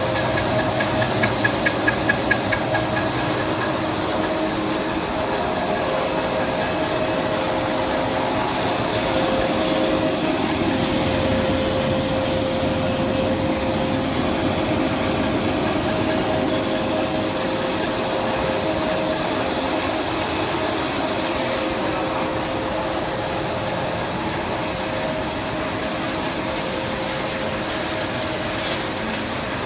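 Pet-food extruder production line running: a steady machine drone with a couple of held humming tones. A short run of rapid clicks comes about a second in.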